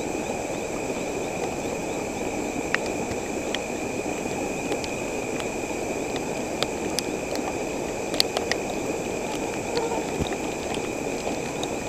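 Night insects chirring steadily in two high, unchanging tones over a steady low rushing noise, with a scattering of sharp clicks.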